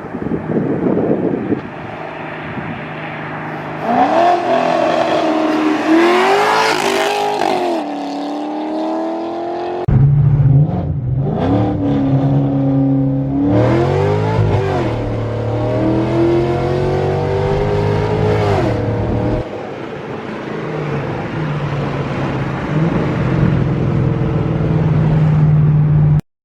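Chevrolet C6 Corvette V8 with long-tube headers, X-pipe and muffler delete, running loud and rising and falling in pitch several times as it is revved and accelerated, in short clips joined by abrupt cuts.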